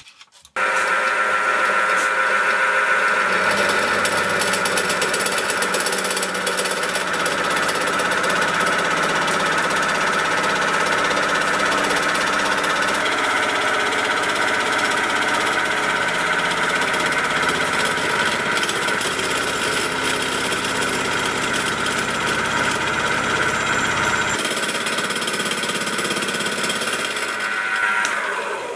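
Homemade face mill with square SEHT carbide inserts taking a 2 mm deep facing cut in aluminium on a small milling machine: a steady, loud cutting noise with a high ringing tone. It starts suddenly about half a second in and stops just before the end. The mill takes the cut easily.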